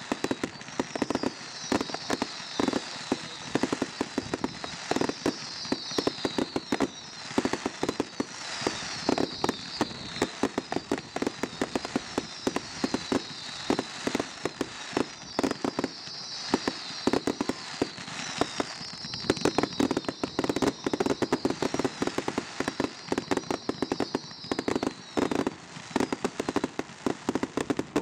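Fireworks barrage: a rapid, unbroken run of launch thumps, bangs and crackles, many a second, with repeated short high whistles that fall in pitch, one after another.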